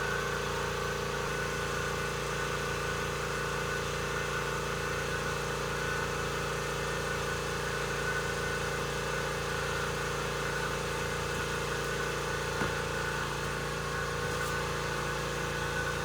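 Steady motor hum at a constant pitch, with one faint click about three-quarters of the way through.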